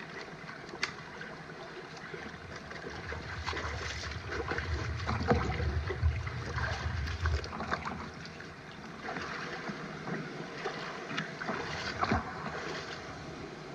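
Splashing and sloshing of shallow stream water as a hand net on bamboo poles is worked through it among rocks, with scattered small knocks and scrapes. A low rumble swells in the middle.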